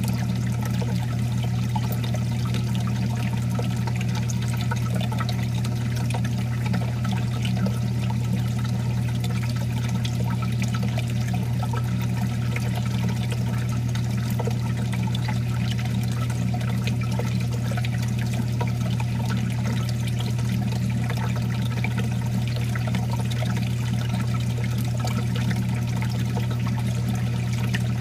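Water splashing and trickling steadily in a reef aquarium sump, over a steady low hum.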